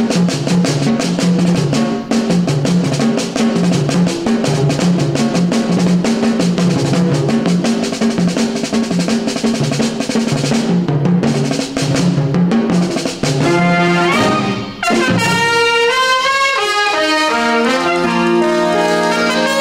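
Instrumental background music led by brass, with a steady beat and a repeating bass line; about fifteen seconds in the beat breaks off and held notes move in steps.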